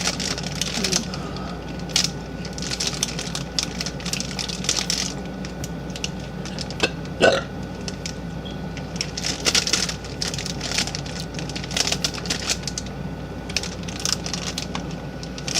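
A girl burps once, briefly, about seven seconds in. Under it run a steady low hum and scattered small clicks.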